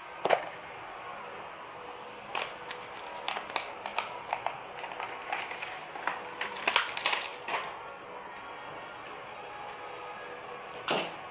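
Handling noises from unboxing a small model bus: a run of sharp clicks and taps, thickest in the middle, with a louder knock near the start and another near the end.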